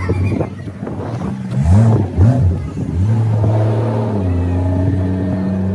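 Motorboat engine running, revved up twice in quick succession about a second and a half in, then held at a steady, slightly higher speed.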